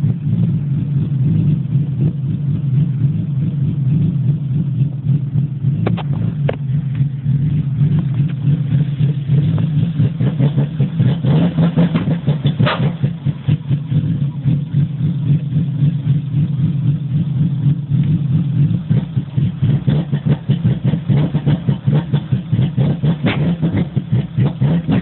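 BMW E30 320i's 2.0-litre straight-six idling roughly with a bad misfire: an uneven, stumbling beat whose loudness keeps dipping, more sharply in the second half, with a few sharp ticks.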